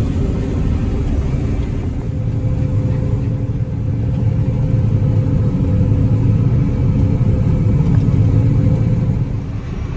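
Combine harvester running as it harvests wheat, heard from inside the cab: a steady low rumble of engine and threshing machinery with a faint steady hum over it, growing a little louder in the second half.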